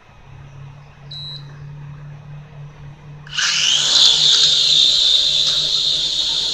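Small toy drone's electric motors and propellers spinning up about three seconds in and running with a loud, steady, high-pitched whine, after a short beep about a second in.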